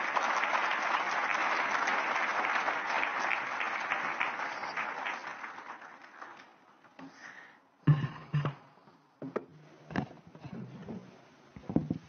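Audience applause that fades away about six seconds in. It is followed by a few knocks and thumps picked up by the lectern microphone, the loudest about eight seconds in.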